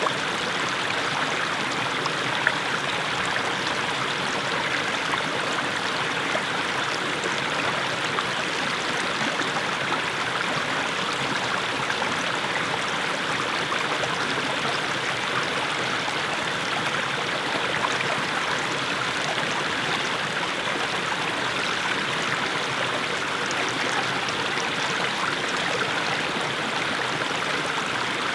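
Small mountain stream splashing steadily over low steps of mossy stones.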